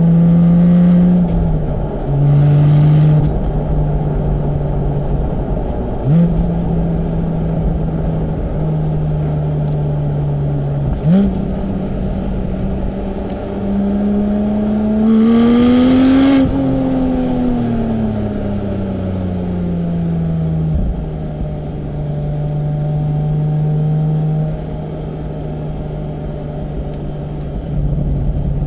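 Porsche 718 Spyder's 4.0-litre flat-six running through its sports exhaust while driving, the note stepping in pitch at each gear change. Around the middle it climbs under acceleration, then falls away as the car slows. Two short rushes of noise sit over it, one a couple of seconds in and one at the peak of the climb.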